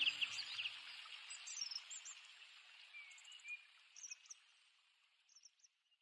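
Faint birds chirping over a soft hiss of outdoor ambience, with music fading out about a second in. The chirps thin out and fade to silence near the end.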